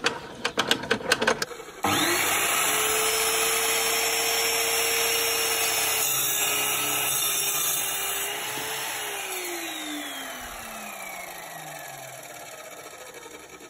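A few quick knocks, then an Evolution Rage4 185 mm multi-material chop saw starts up sharply about two seconds in and cuts through a block of timber with large-gauge nails through it. The motor sound holds steady through the cut, then falls in pitch and fades as the blade winds down after the trigger is released.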